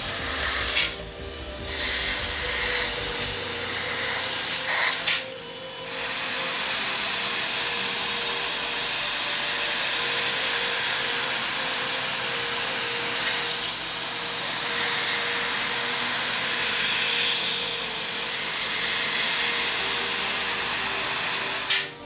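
Laser cutting machine cutting knife-blade profiles out of steel sheet: a steady, loud hiss with a faint hum under it. It drops out briefly about a second in and again around five seconds, and stops abruptly at the end.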